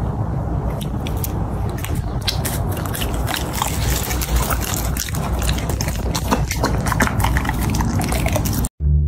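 Chocolate Labrador puppy chewing a soft piece of food close to the microphone: many quick, irregular wet chewing clicks over a low steady hum. It stops abruptly just before the end.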